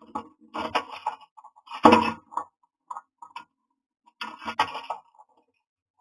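A common myna moving about inside a wooden nest box as it places leaves: its claws and bill scrape and tap on the box, heard close and boxy as irregular clusters of knocks and scratches, loudest about two seconds in.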